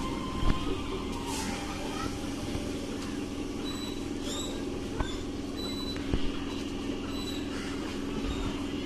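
Old EMU electric local train at the platform: a steady low electric hum, with a few scattered knocks and clunks.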